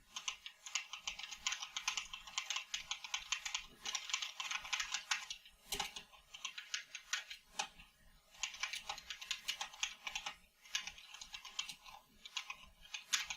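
Fast typing on a CoolXspeed Phantom mechanical keyboard with clicky white-variant (non-Cherry MX) switches. Rapid runs of keystrokes last a few seconds each, broken by short pauses with a few single, louder key presses.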